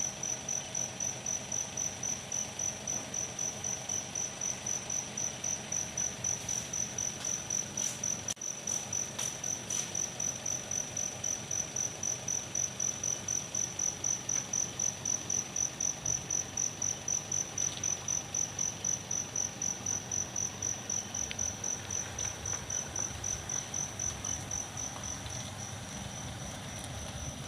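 Cricket chirping steadily, a high-pitched pulse repeating evenly about three to four times a second.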